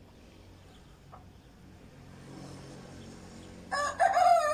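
Local-breed (beldi) rooster crowing near the end: a short first note, then a long held note that carries on.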